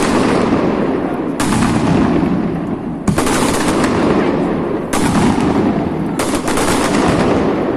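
Fireworks display: dense, rapid crackling and popping. A fresh volley breaks in about every second and a half.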